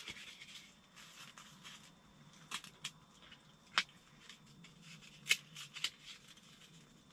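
Small wood fire burning in an open fireplace, with a few sharp isolated crackles and pops every second or so over a faint steady background.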